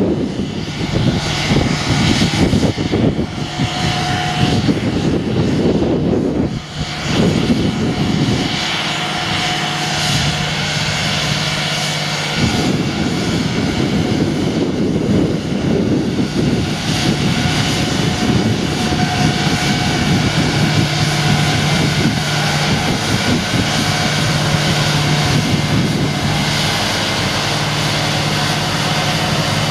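Heavy diesel engine of a rail-delivery train running steadily as the train moves slowly along the track, with a steady low hum.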